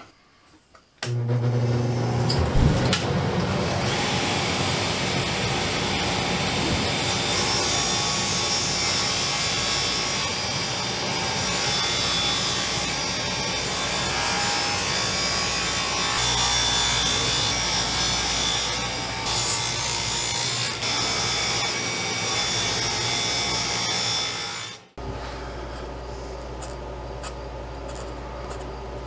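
Table saw cutting 3/4-inch birch plywood: it comes in suddenly about a second in, runs steadily through the cut and stops sharply near the end. After that, a pencil marks the cut plywood pieces over a quieter background hum.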